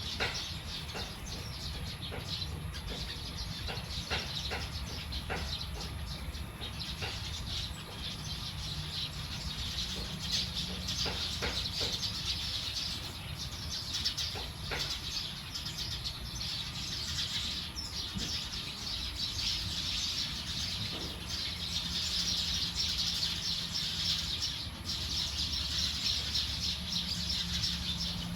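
A large flock of small birds chirping and twittering all at once in a dense, continuous chorus, as birds gather at a roost to settle for the night. A steady low hum runs underneath.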